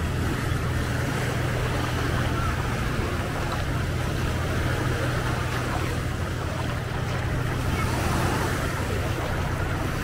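Steady seaside ambience: surf washing on the beach, with wind buffeting the microphone in a steady low rumble.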